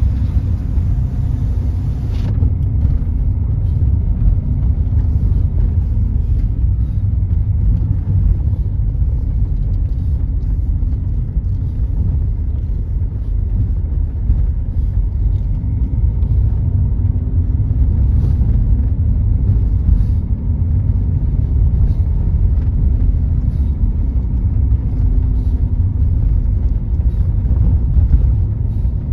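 Car driving along a road, heard from inside the cabin: a steady low rumble of engine and tyre noise with a faint engine hum above it.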